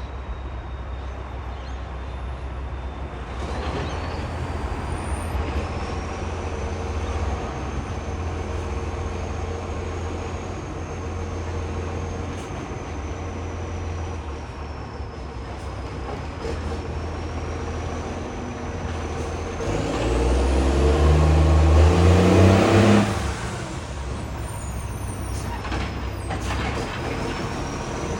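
Garbage truck's diesel engine running with the loud rasp of a leaking exhaust pipe, then revving up loudly with rising pitch for about three seconds before dropping back to idle. A thin high whine wavers above the engine.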